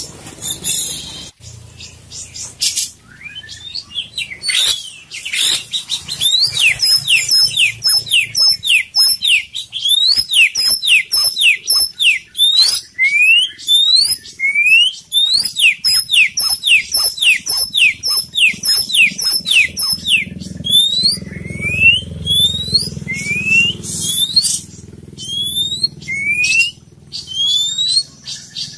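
Oriental magpie-robin (white-bellied kacer poci) singing loudly: a fast run of sharp rising whistled notes, several a second. Near the end the notes thin out to single rising whistles about a second apart.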